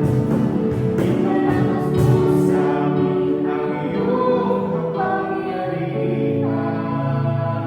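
Christian worship song: a choir of voices singing held notes over instrumental accompaniment.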